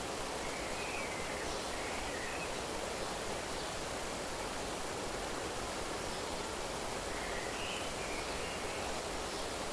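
Steady rushing of flowing water, an even noise with no change. Faint bird chirps come in two short clusters, one near the start and one near the end.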